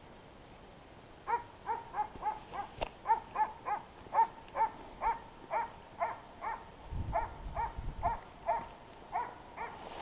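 Hunting dog barking in a steady string of short barks, about two to three a second, starting about a second in. A brief low rumble comes partway through.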